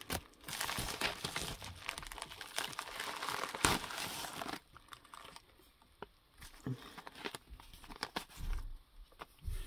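Plastic mailing envelope crinkling and rustling as it is handled and a stack of paper seed packets is pulled out of it. The crinkling is loud and dense for the first four and a half seconds, then drops to scattered, quieter rustles.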